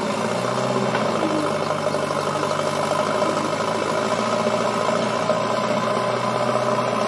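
Diesel engine running at a steady, even speed.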